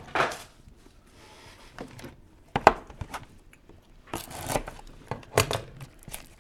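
A trading card pack's wrapper being torn open and crinkled by hand, in several short rustling tears.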